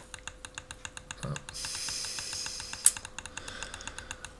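Rapid, evenly spaced clicks at a computer, about seven a second, over a faint steady hum. A short hiss comes in the middle and ends in one sharper, louder click.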